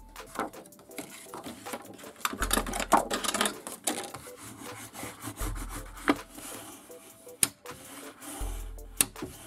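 Hands rubbing and smoothing white cardstock flat to press a freshly glued panel down, paper sliding and rustling with a few sharp paper snaps and taps toward the end.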